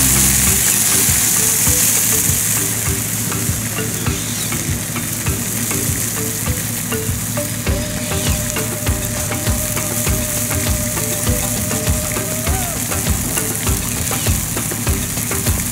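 Food frying and sizzling in a pan, stirred with a spatula that knocks and scrapes against the pan several times a second.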